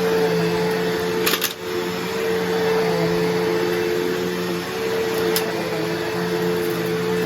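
Bissell CleanView Revolution Deluxe upright vacuum running steadily with a constant motor hum, and a short rattle about a second and a half in.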